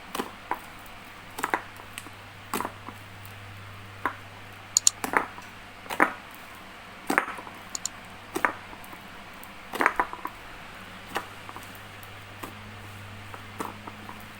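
Dish-soap slime being squeezed and kneaded by hand, giving irregular wet clicks and squishes about once or twice a second, over a faint steady low hum.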